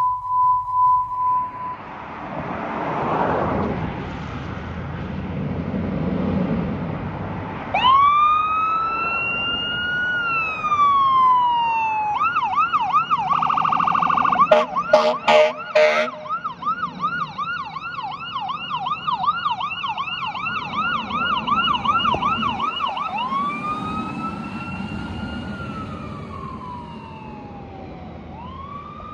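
Fire engine's electronic siren: a slow rising and falling wail, then a rapid phaser warble for about ten seconds, then back to the wail. A few short air horn blasts break in near the start of the warble, and a steady beep tone sounds for the first couple of seconds.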